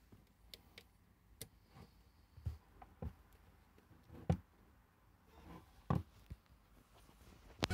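Faint, scattered handling clicks and knocks, about half a dozen a second or so apart, from hands working around a car radio unit, with a sharper click just before the end.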